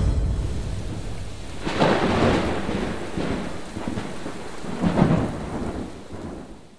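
Thunderstorm: steady heavy rain with thunder, a low boom at the start and rolling rumbles swelling about two seconds in and again about five seconds in, fading out at the end.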